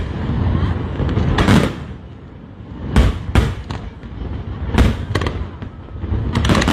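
Aerial fireworks bursting: a handful of sharp booms a second or two apart over a steady low rumble, then a fast run of crackling near the end.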